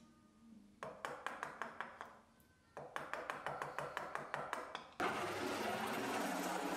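Two quick runs of light, evenly spaced ticks, about seven a second. Then, about five seconds in, a drill press starts up abruptly and runs steadily, its bit boring a hole into a wooden dowel.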